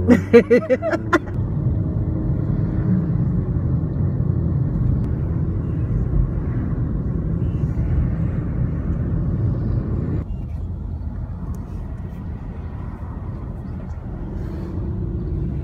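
Steady low road and engine rumble heard from inside a moving vehicle, easing slightly about ten seconds in. A brief loud burst of voice comes right at the start.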